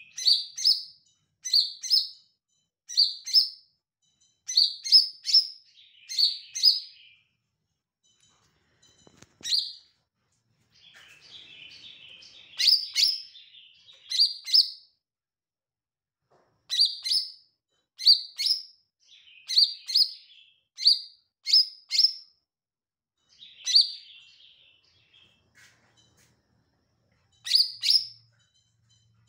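Caged male green leafbird (cucak ijo) singing: short, sharp high notes in quick clusters of two or three, repeated with brief pauses. A softer scratchy chatter comes in between phrases a few times.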